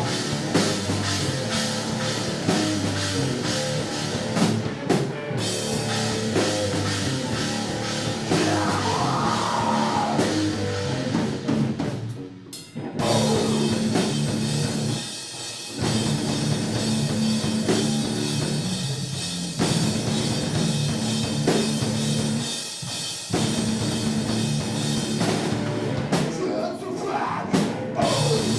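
Rock band playing live, drum kit and guitars driving a heavy song, with a few short breaks where the whole band stops for a moment.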